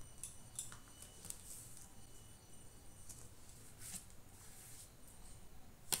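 Faint, scattered rustles and soft scrapes of paper and a plastic sleeve as papers are handled in a presentation folder, with a sharper click just before the end.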